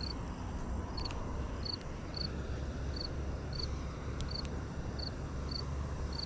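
An insect chirping in short, evenly spaced high chirps, about one and a half a second, over a steady low rumble, with a few faint clicks.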